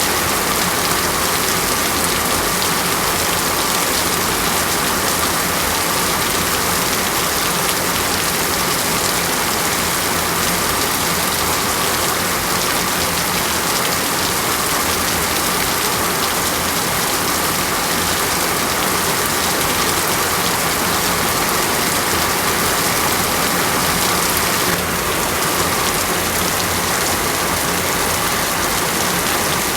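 Steady heavy rain falling on a surface, an even hiss with no breaks.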